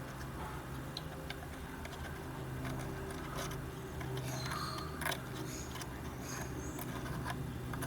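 Faint, scattered ticks and light clicks of wires and small parts being handled while speaker wires are run behind a mount, over a steady low hum.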